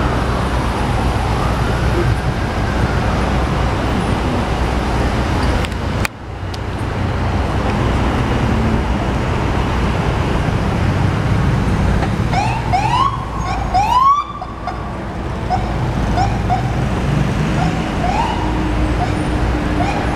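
FDNY fire apparatus electronic sirens over steady city traffic rumble. A slow rising-and-falling wail comes first; about two-thirds of the way through comes a loud run of quick rising whoops, then short repeated chirps near the end.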